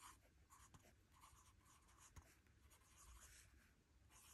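Faint scratching of a Lamy fountain pen's broad steel nib writing on paper, in short strokes as each letter is formed, with one light tick about two seconds in.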